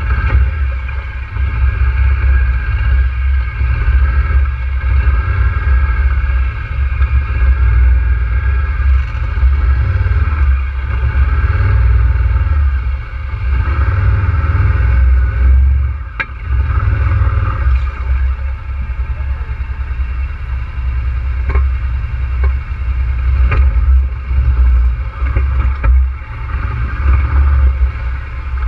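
ATV engine running at low, uneven revs as the quad creeps into deep water, with a heavy rumble and a few sharp knocks.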